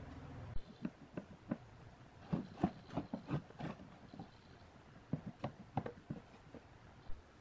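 Irregular light knocks and clicks of a beam light's metal lens frame being handled and set against a wooden bench, busiest in the middle. A low hum stops about half a second in.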